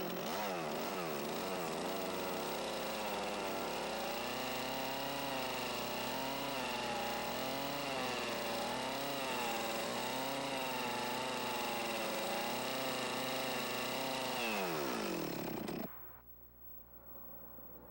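Chainsaw cutting wood, its engine note rising and falling under load, then winding down and stopping near the end.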